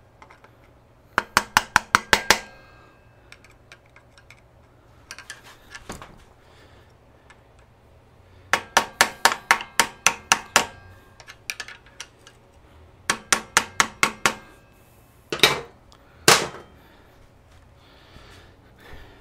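Hammer tapping a flathead screwdriver held against the front drum-brake assembly of a Honda CL350, in quick runs of light metallic taps, about six a second, with pauses between runs. Two heavier knocks about a second apart come near the end.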